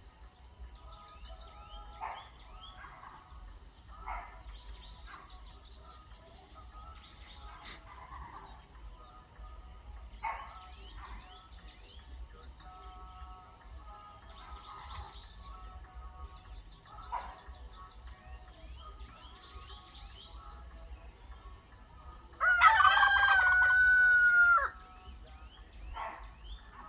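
A rooster crows once, a single drawn-out crow of about two seconds some 22 seconds in, the loudest sound. Before it, short scattered bird calls come every few seconds over a steady high insect drone.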